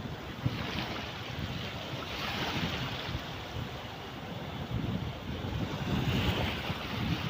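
Sea waves washing in, with two louder swells of surf hiss, about two seconds in and again near the end, over steady wind buffeting the microphone.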